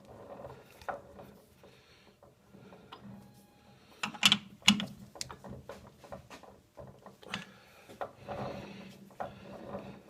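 Metal lathe chuck being rotated by hand and its jaws adjusted with the chuck key while a part is centered to cut its runout: scattered clicks and metallic knocks, the two loudest close together about four and a half seconds in.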